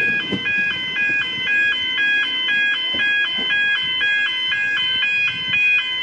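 Level crossing warning alarm sounding: a loud electronic two-tone signal switching rapidly back and forth between two pitches. It changes to a steady tone right at the end.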